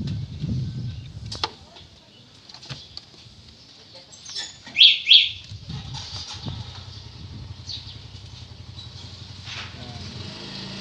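Plastic engine-oil bottle being handled and uncapped over a funnel, with scattered clicks. Two short high chirps come about five seconds in, and a low steady hum starts from about six seconds.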